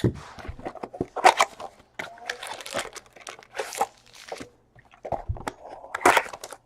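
Foil trading-card pack wrappers crinkling and tearing as packs are opened and cards handled: a run of short, irregular crackles and clicks.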